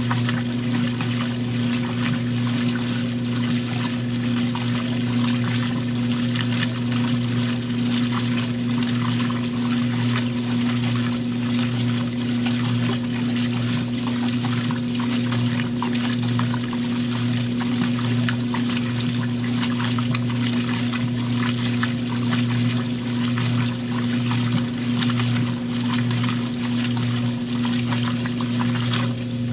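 A 1962 RCA Whirlpool LJA70 washing machine with water pouring and splashing inside it over a steady low hum, unchanging throughout.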